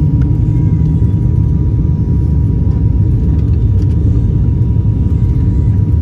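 Steady low rumble of airliner cabin noise, engine and airflow, with a faint steady whine held on one pitch.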